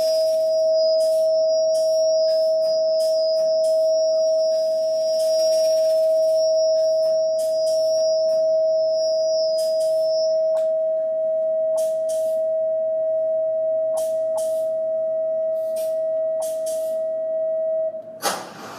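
Live experimental electronic music: a steady, pure mid-pitched tone held with a thin high whistling tone over it for the first half, and short bursts of hiss scattered across. The tone cuts off suddenly just before the end, followed by a brief loud burst of noise.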